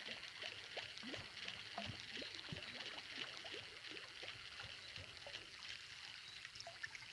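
Faint ambience: a steady high hiss with many short chirps and ticks scattered through it at uneven times.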